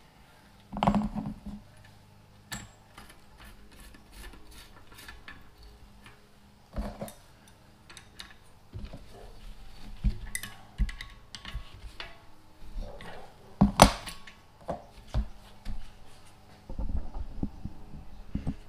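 Metal clinks, clicks and knocks of Shimano XT cassette sprockets being fitted onto a bike wheel's hub and worked on with a tool. The sounds come irregularly, with a cluster about a second in and a sharp knock about two-thirds through.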